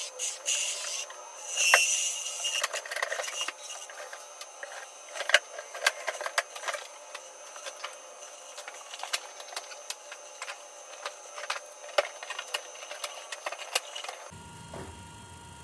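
Wood lathe spinning a maple and purpleheart ornament while a hand-held turning tool cuts it: dense scraping and ticking of the tool and flying shavings over a thin steady high whine. Near the end it stops abruptly and gives way to a quieter low hum.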